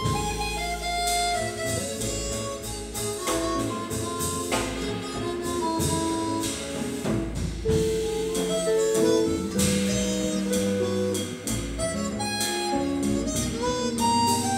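Live jazz quartet: a harmonica leads with a line of held and quick notes, over hollow-body electric guitar, double bass and drums.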